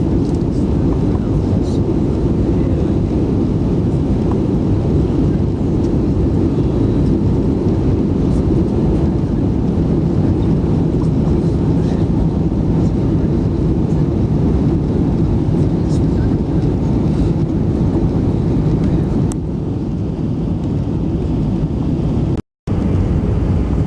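Airliner cabin noise on approach, a steady low rumble of the jet engines and airflow. It eases slightly about three-quarters of the way through, then cuts out to silence for a moment near the end.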